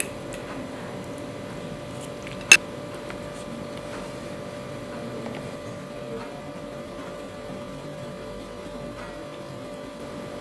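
Steady background hum with a faint steady tone. About two and a half seconds in, a single sharp clink of metal cutlery against a ceramic bowl of noodles, with a few much fainter taps.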